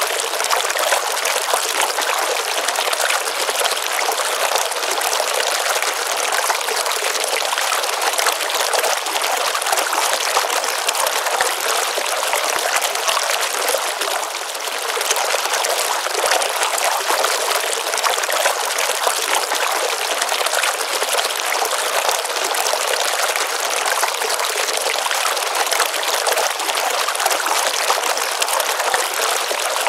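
Water of a small pond stream running steadily, with a slight dip in level about halfway through.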